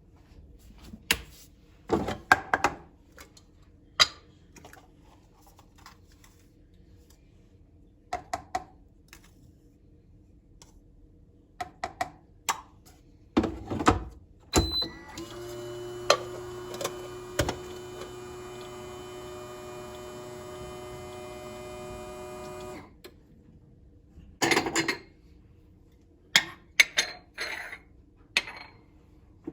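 Kitchen handling sounds, scattered knocks and clatters of dishes and utensils. Partway through, a short beep is followed by a kitchen appliance's motor humming steadily for about seven seconds before it cuts off.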